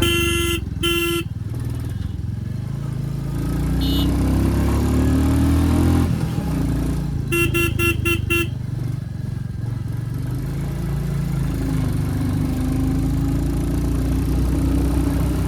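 2023 Royal Enfield Classic 350's 349 cc single-cylinder engine running under way, its pitch rising as it gathers speed a few seconds in and again near the end. A horn sounds two blasts at the start and a quick run of five short beeps about halfway through.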